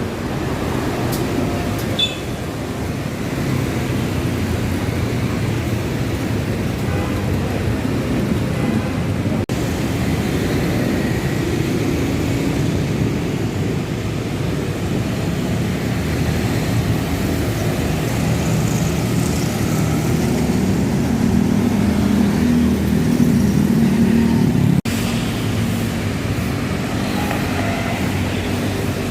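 City bus traffic: Transjakarta bus engines running amid steady road noise, with a low engine hum growing louder about two-thirds of the way through.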